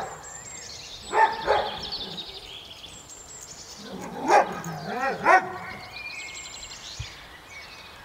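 A dog barking in two short groups, twice and then three times, with small birds twittering high and faint in between.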